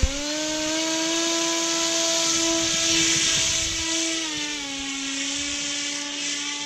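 RC model paramotor's propeller motor whining as it throttles up for launch, the pitch rising at the start and holding steady, then easing to a slightly lower pitch about four seconds in as the model climbs away.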